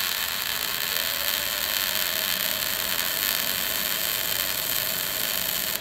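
Wire-feed welding arc running as a steady, loud crackling hiss throughout, then cutting off suddenly at the end as the weld finishes.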